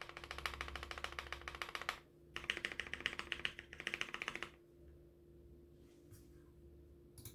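Fast typing on a 60% mechanical keyboard with lubed and filmed Gateron Yellow linear switches, an aluminum plate, a frosted acrylic case and POM jelly keycaps. Two runs of quick keystrokes with a short break at about two seconds; the typing stops about four and a half seconds in.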